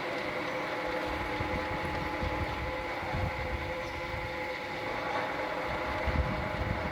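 ZMM CU 500 engine lathe running, a steady mechanical whine of several fixed tones from its drive and gearing over a hum, with a few low thumps.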